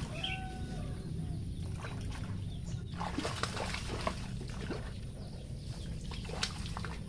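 Catfish thrashing at the surface of a pond: a run of irregular splashes and sloshing water.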